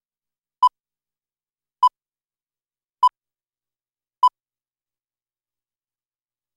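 Four short electronic beeps at one steady pitch, evenly spaced a little over a second apart, then silence.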